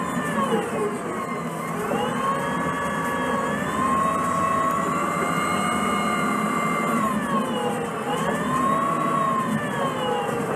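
Orion VII CNG transit bus running with a Cummins C Gas Plus engine and a Voith DIWA transmission. Its drivetrain whine dips in pitch and climbs back three times, about one, eight and ten seconds in, over a steady engine rumble.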